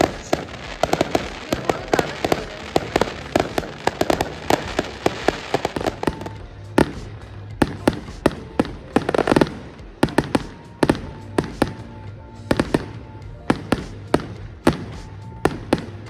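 Fireworks going off: a dense rapid crackle of bursts for the first six seconds or so, then separate bangs about a second apart, with music underneath.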